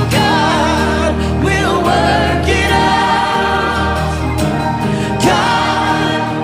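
Christian worship song: sung vocals with vibrato, layered like a choir, over sustained instrumental backing.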